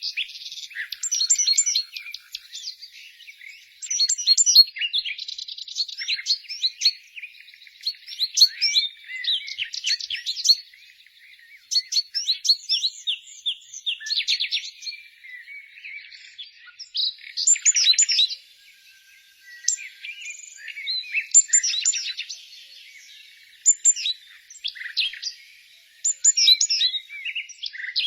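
Several small songbirds chirping and singing together, with quick high chirps, rapid trills and short warbled phrases overlapping, and brief lulls between bursts.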